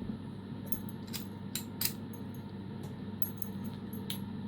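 Light metallic clicks and taps from a key turning in a 50 mm steel padlock and the lock being handled, a handful spread irregularly through.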